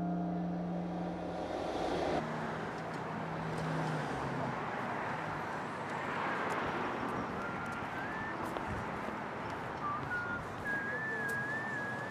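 The last piano notes ringing out and fading, then a steady background of outdoor noise with thin, wavering whistle-like calls in the second half, the longest near the end.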